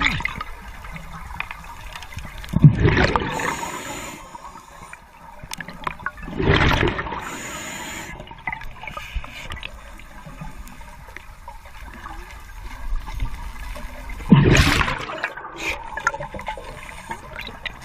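Scuba diver breathing through a regulator underwater, heard as three rushing gushes of exhaled bubbles. The first two are each followed by a thin hiss of inhaled air. Between breaths there is a low murmur of water.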